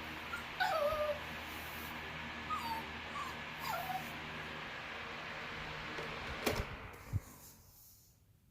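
Bichon Frise dog whining: four short high whimpers that fall in pitch, in the first four seconds, over a steady background hiss. A couple of sharp knocks sound later, and the hiss fades away near the end.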